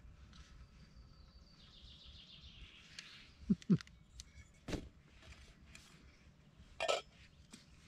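Handling of a metal camping pot and its lid on a gas canister stove: two dull knocks about halfway through, a sharper knock a second later, and a short rustle of a packet near the end. Birds chirp faintly in the background.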